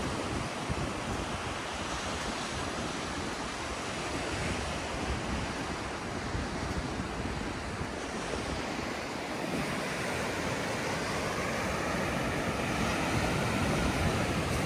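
Ocean surf washing onto a beach, a steady rush that grows a little louder in the second half, with wind on the microphone.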